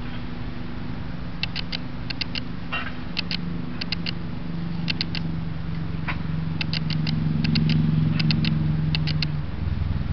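Steady low hum of road traffic, with a vehicle passing and swelling louder around the eighth second, overlaid by short high chirps in quick groups of two to four, repeating every second or so.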